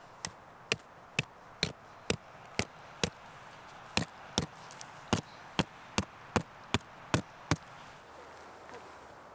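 A hand tool striking something hard about sixteen times in a steady rhythm of roughly two blows a second, with one short pause partway through; the blows stop a couple of seconds before the end.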